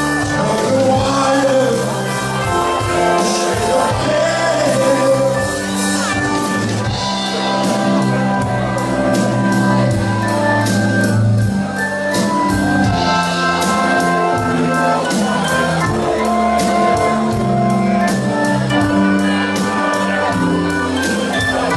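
Live rock band playing: electric and bass guitars, acoustic guitar, keyboard and drums with a steady beat, and singing over them.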